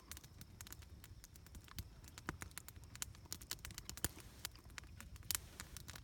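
Campfire crackling: many light, irregular clicks and pops of varying strength over a low, steady rumble.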